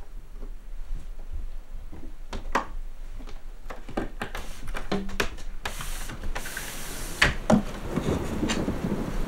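A small sliding cabin window being worked open from outside: scattered knocks and rattles against the frame, then a hissing scrape lasting about a second from a little past halfway, followed by bumps and rustling as someone starts to climb through.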